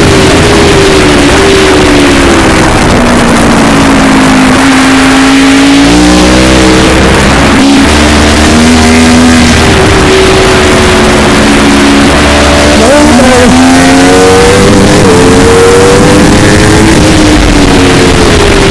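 A vehicle engine rising and falling in pitch again and again as it is revved up and eased off, under heavy wind noise and distortion from an overloaded helmet-mounted microphone.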